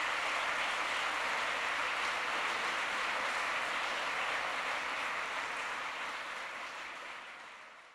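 A large crowd applauding steadily with dense, even clapping that fades out over the last two seconds.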